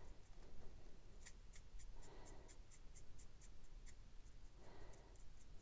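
Stampin' Blends alcohol marker tip flicking across paper in quick short strokes, a faint run of light scratchy ticks about four a second, building a fur texture.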